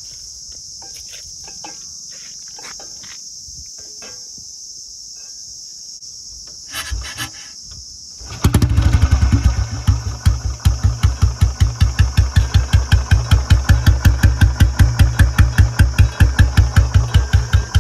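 Crickets chirping steadily, then about eight seconds in a 2009 Royal Enfield Bullet 350's single-cylinder engine starts and settles into a loud, steady, evenly spaced thumping through a long-bottom silencer.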